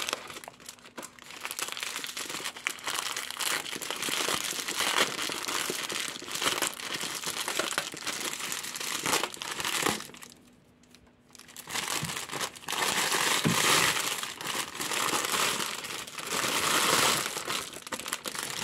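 Foil wrapper of a Kinder Surprise Maxi chocolate egg crinkling as hands pull it open. There is a pause of about two seconds near the middle.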